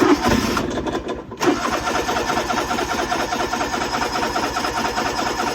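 Electric starter cranking the engine of an old Kubota riding mower in even pulses, a short try and then a longer one from about a second and a half in, without the engine catching. The owner puts the no-start down to a dirty carburetor not getting enough fuel.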